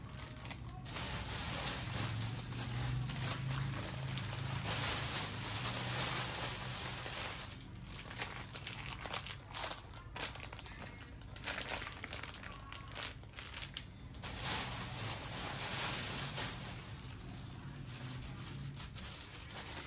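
Plastic bags and food packaging crinkling and rustling as hands handle wrapped raw meat, on and off with short pauses.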